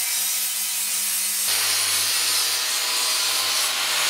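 Angle grinder grinding the plasma-cut edge of a steel plate to clean it up: a steady, loud gritty hiss whose tone shifts about a second and a half in.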